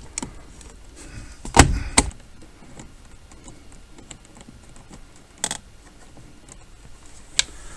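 Parts and tools being handled during reassembly: two loud knocks about a second and a half in, a single sharp click near the middle and another near the end, with light rattling and ticking between.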